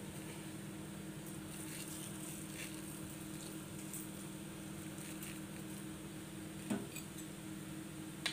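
Faint, scattered light ticks of granulated sugar being sprinkled onto a flatbread on a plate, over a steady low hum. There is one soft knock about seven seconds in.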